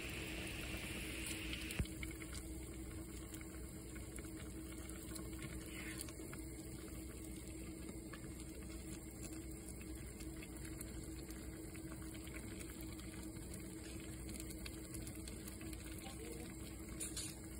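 Pot of vegetable and fish soup boiling on the stove: a steady bubbling hiss, with a faint steady hum underneath and one small click about two seconds in.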